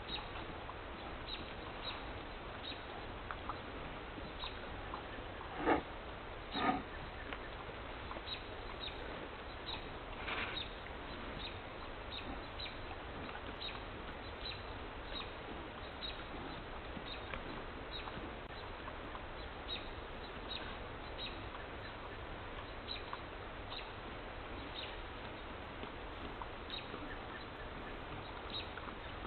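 Forest ambience: a steady background hiss dotted with frequent short, high chirps, and two louder short animal calls about six and seven seconds in.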